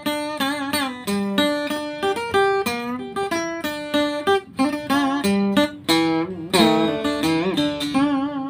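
Acoustic guitar played solo in tân cổ (cải lương) style: a plucked single-note melody with bent, wavering notes over a recurring lower note.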